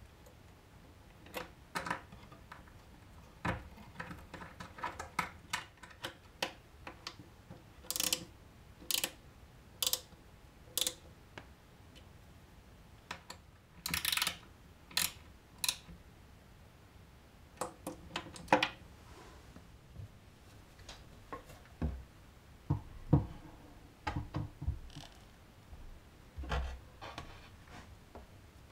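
Small hand-work handling noises: scattered clicks and scrapes of a screwdriver turning a small screw and a metal cord clamp being fitted against a wooden cabinet, with a few duller knocks in the second half.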